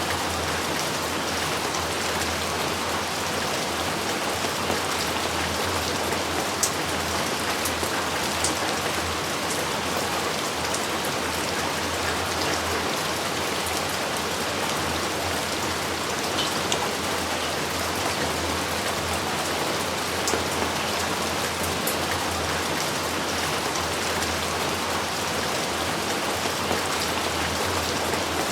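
Steady rain falling, an even hiss of downpour with occasional sharper drops ticking close by.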